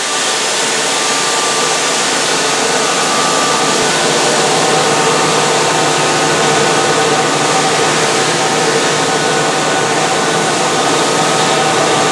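Mazak VTC-250D/50 CNC vertical machining center milling a part with a small end mill: steady spindle and cutting noise, a few faint steady whining tones over an even hiss.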